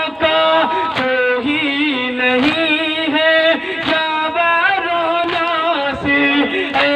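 Male voice singing a noha, a Shia lament, through a microphone in long wavering held notes, with a sharp unison strike about every second and a half keeping time: the mourners' matam, beating their chests.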